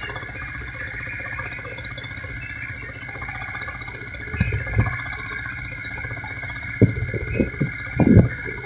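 Vintage tractor engine running under load during a tractor pull, a steady low drone with a few short louder sounds in the second half.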